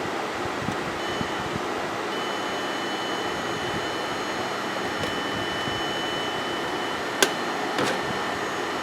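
Steady fan-like whooshing with a steady high-pitched electronic tone that drops out and comes back twice in the first two seconds, then holds. Two sharp clicks sound close together near the end.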